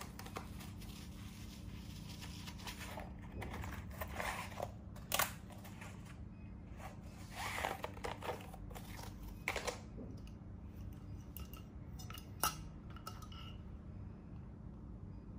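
A pleated paper lampshade being handled: paper rustling and crinkling in irregular bursts, with a few sharp clicks, the loudest about five seconds in.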